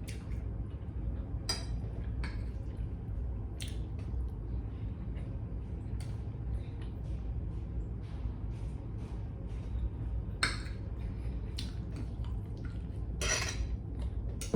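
Mealtime eating sounds: a spoon or fork clinking on a plate a few times, with scattered small clicks between, over a steady low hum.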